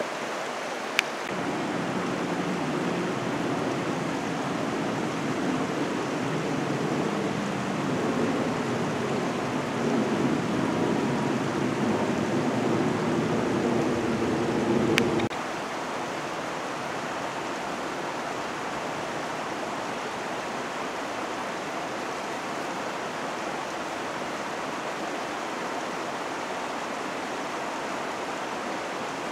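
Steady rushing of a small forest creek. For roughly the first fifteen seconds a lower, wavering drone runs under it and then stops abruptly.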